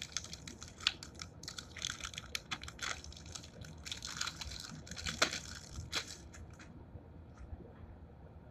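Clear plastic packaging sleeve crinkling and crackling as it is handled and opened to take out an enamel pin on its backing card. The crinkling is busiest over the first six seconds, with the loudest crackle about five seconds in, and then dies away.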